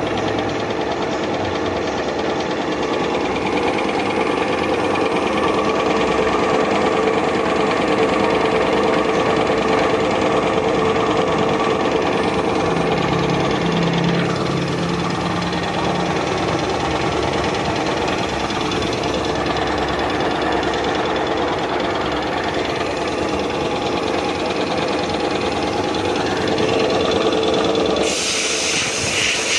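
5 hp Puma high-pressure piston air compressor running steadily under test, a loud, even mechanical clatter with a constant hum. Near the end the running note drops away and a hiss takes over.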